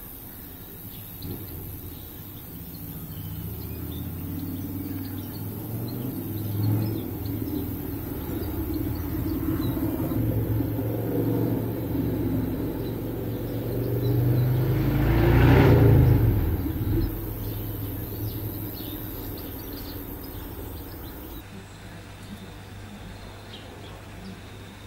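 Rumble of a passing vehicle that swells to a peak about two-thirds of the way through and then fades away, with faint bird chirps.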